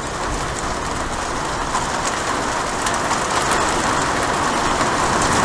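Heavy rain from a thunderstorm moving in: a steady rushing downpour that slowly grows louder.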